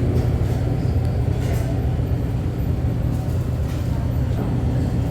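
A steady low rumble like a road vehicle running.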